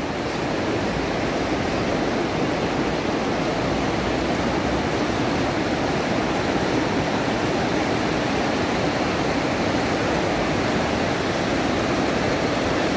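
Rushing river water, a steady even rush; the river is churned up after a night of rain.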